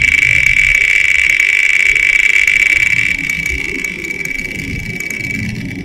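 Spin sound effect of an online picker wheel: fast ticking blurred into a high, steady whirring hiss that gradually fades in the second half.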